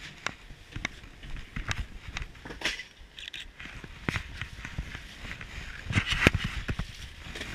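Footsteps and irregular knocks and clatter of boots and gear as people climb down through a hatch and move about below deck on a ship, with a louder run of knocks about six seconds in.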